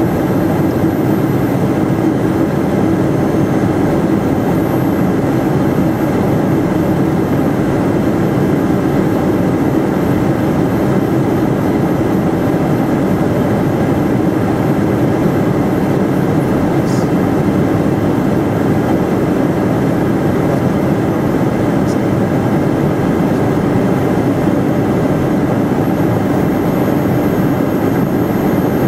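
Steady cockpit noise of an Eclipse 500 very light jet on approach: the drone of its twin Pratt & Whitney PW610F turbofans and the rush of airflow over the airframe, unchanging throughout.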